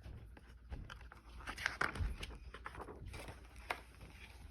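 Pages of a picture book being handled and turned: soft paper rustles and a few light clicks, clustered about one and a half seconds in, with another click near the end.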